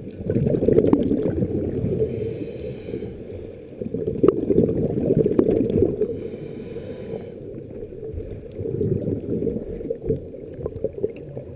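Scuba diver breathing through a regulator, heard underwater: a hiss on each inhale, then a loud bubbling rush as the exhaled air bubbles out, about every four seconds.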